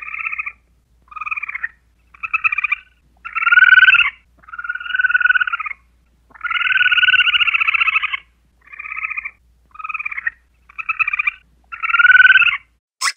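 Chipmunk calling: a run of about ten rapid trilling calls, some short and some nearly two seconds long, with brief gaps between them.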